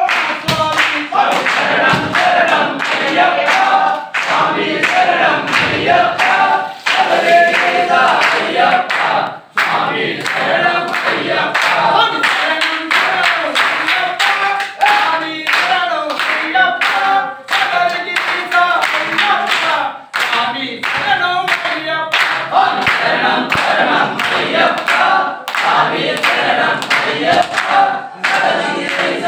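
A group of men singing an Ayyappa devotional bhajan together, keeping time with hand claps throughout.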